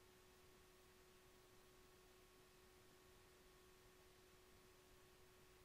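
Near silence: a faint hiss with a steady, faint hum-like tone throughout.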